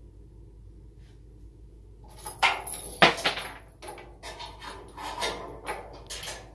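Support chain jingling and metal clanking at the steel tailgate of a 1950 Chevrolet 3100 as the chain and hardware are handled by hand. The clanking starts about two seconds in, with one sharp clank about a second later.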